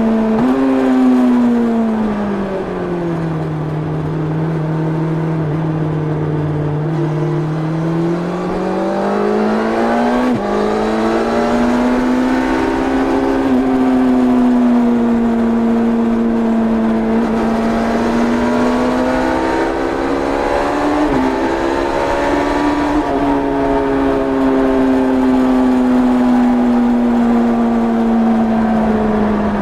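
1990 Yamaha FZR600's inline-four engine on its stock exhaust, heard onboard while riding. The revs drop over the first few seconds, climb back about eight to ten seconds in with a brief dip at the top, hold fairly steady, then ease down slowly near the end.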